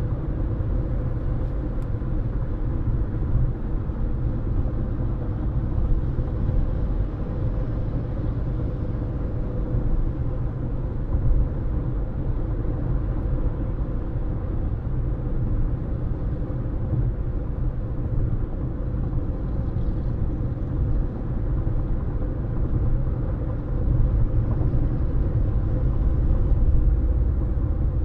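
Steady low road rumble and tyre noise of a car driving at speed, heard from inside the cabin, swelling slightly louder near the end.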